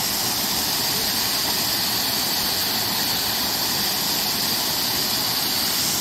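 Mountain stream water spilling over a small rocky waterfall into a pool: a steady rush of water with a bright hiss.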